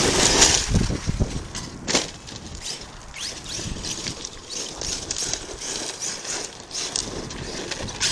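Wind buffeting the microphone outdoors, loudest for the first second, with a single sharp knock about two seconds in and faint scattered crackles after.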